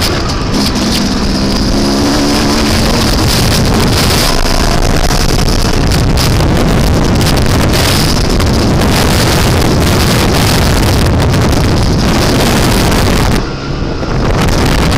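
Heavy wind noise on an action camera's microphone while riding a dirt bike, with the bike's engine faintly under it. The wind drops briefly near the end.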